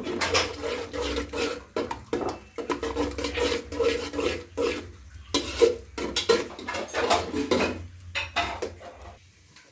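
A metal spoon or spatula clinking and scraping against a cooking pan in irregular strokes as food is stirred.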